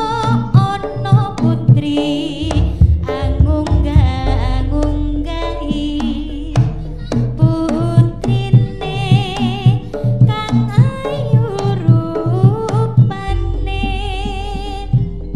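Live East Javanese jaranan music: kendang hand drums keep a steady driving beat under gamelan and a wavering high melody line.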